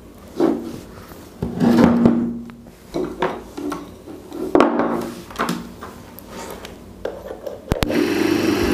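Handling noises on a wooden bench: wires being rubbed and twisted, and the metal casing of a cooler motor knocking as it is turned and set down. Near the end there is a sharp click, and the motor starts to hum steadily as it comes up to speed on mains power.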